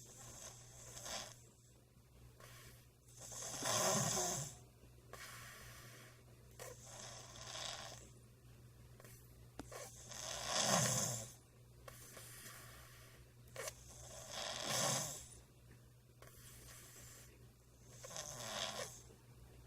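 A baby snoring in sleep, with a snoring breath about every three to four seconds, some much louder than others. The snoring is what the parent suspects is a sign of sleep apnea.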